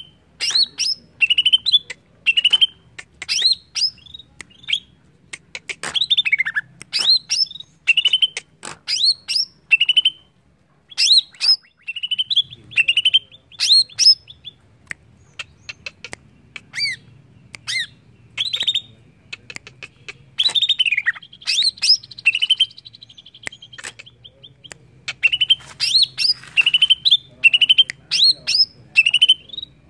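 Caged greater green leafbird (cucak ijo) singing loud, sharp whistled phrases, one or two a second, each sweeping up and down. There is a brief lull about halfway through and a longer buzzy note a little later.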